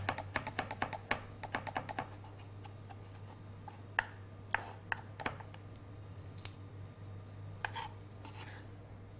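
Chef's knife chopping a garlic clove finely on a wooden chopping board: quick taps about four or five a second for the first two seconds, then a few scattered knocks and scrapes as the chopped garlic is gathered.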